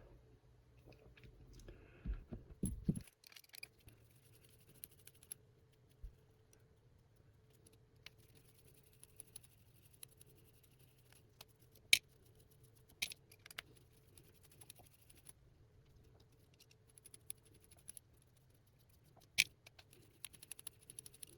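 Faint, sparse clicks and taps from small hand tools and screws on a mini FPV drone's frame as the DJI video unit is unfastened, with a few sharper ticks near the middle and near the end.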